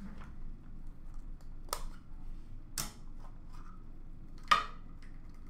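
Hard plastic card holders clacking as they are handled and set down: three sharp clicks, the loudest about three-quarters of the way through, with faint rustling between.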